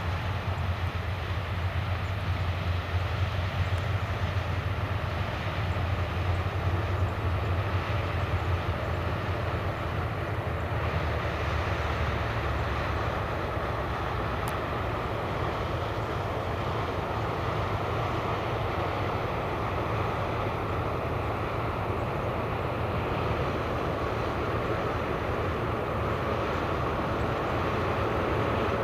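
Heavy farm machinery's diesel engine running steadily during corn harvest, a continuous broad mechanical drone. A strong low hum weakens about halfway through.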